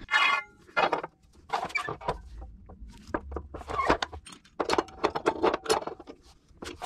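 Aluminum tubing being handled and clamped on a miter saw: a series of irregular metal clinks and knocks, the first one ringing briefly.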